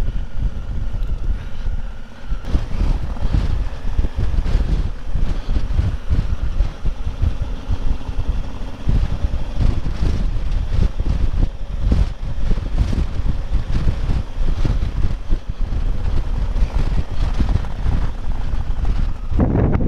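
Wind buffeting the microphone of a Honda Africa Twin motorcycle ridden slowly, at about 15 mph, with the engine running underneath the gusts. The noise changes abruptly just before the end.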